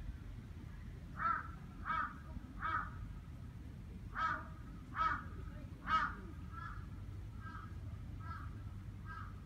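A bird calling in a series of short calls. There are three calls, then three louder ones a little later, then a string of fainter calls about every two-thirds of a second.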